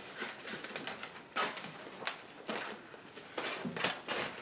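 Eating and food-handling sounds at a table: chewing burgers and fries, with about a dozen short sharp clicks and crinkles from handling food and packaging, more of them near the end.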